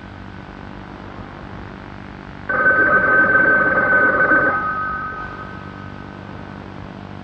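A telephone bell rings once, starting about two and a half seconds in. It rings loudly for about two seconds and then dies away, over a steady faint hiss.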